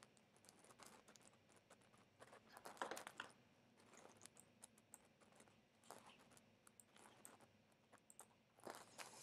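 Faint computer keyboard typing: scattered key clicks in short bursts, the densest run about three seconds in.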